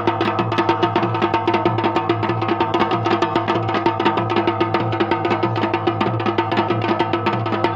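Dhol and damau drums playing Uttarakhandi jagar rhythm: a fast, steady run of rapid strokes with no singing.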